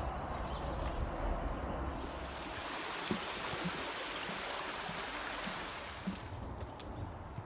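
A small rocky woodland stream rushing over stones, swelling louder for a few seconds in the middle as it is walked past, with a hiker's footsteps on the trail.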